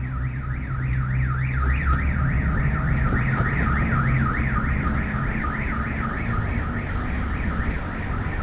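Car alarm siren warbling, its tone rising and falling about three times a second, over a low rumble of wind and riding noise.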